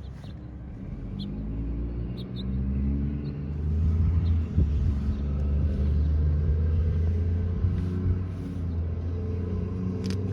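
T-135 outdoor warning siren with a broken chopper starting up: a low mechanical rumble that rises in pitch over a couple of seconds, then holds steady. A sharp click comes near the end.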